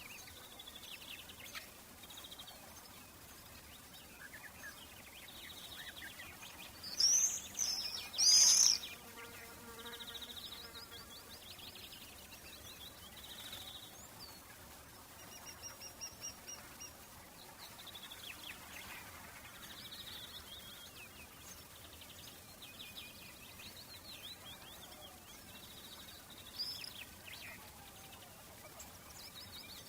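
Summer birdsong ambience: several birds chirping and singing at once, with a few louder, closer calls about seven to nine seconds in.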